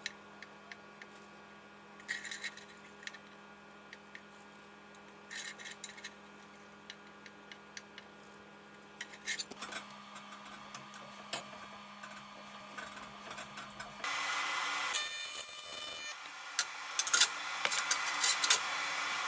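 Sheet aluminium being handled and worked: scattered light clicks and taps over a low steady hum. About two-thirds through, a much louder steady buzz starts, and sharp clacks sound over it as clamps are set on the folded pan.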